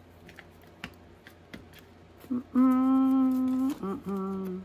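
A woman humming long held notes, a long steady note followed by a lower one, after about two seconds of faint taps and handling sounds.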